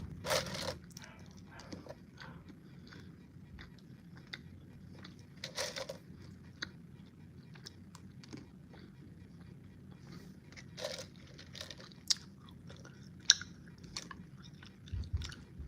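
A person chewing a jelly bean: faint, irregular wet mouth clicks and small smacks.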